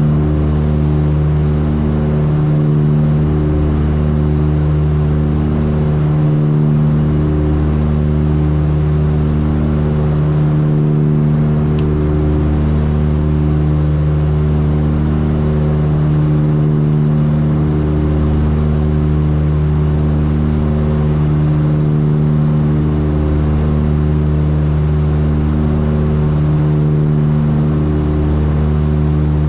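Cabin sound of a Tecnam P2006T twin's two Rotax 912 four-cylinder engines and propellers running steadily in flight, a constant drone with a slow swell and fade every few seconds, the beat of the two engines turning at slightly different speeds.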